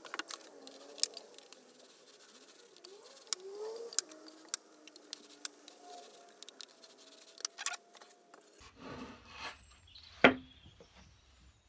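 Plywood being handled on a workbench while glue is spread: scattered light clicks and taps, then a sharp knock about ten seconds in as a plywood piece is set down on the board. A faint wavering tone runs underneath for most of the first eight seconds.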